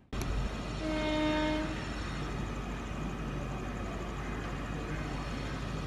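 Indian Railways electric locomotive horn: one steady blast about a second long, starting about a second in, over steady background noise of the approaching train.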